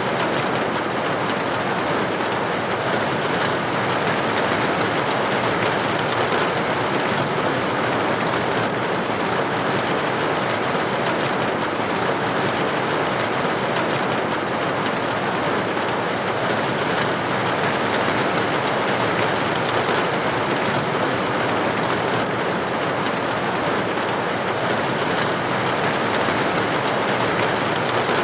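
Steady rain falling on window glass: a dense, even patter with no single drops or gusts standing out.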